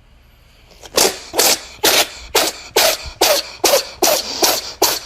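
A person sneezing over and over in quick, even succession, about two sharp sneezes a second, starting about a second in.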